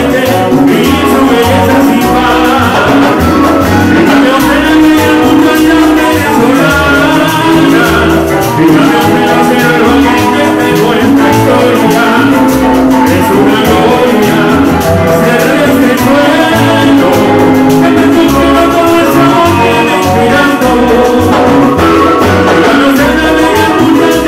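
Live Latin band music, loud and steady, with a pulsing bass line under the band.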